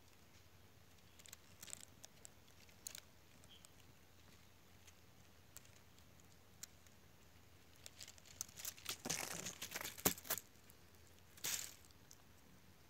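Dry leaf litter and twigs crunching and rustling in faint scattered crackles, with a denser patch of crackling about eight to ten seconds in and a short burst near eleven and a half seconds.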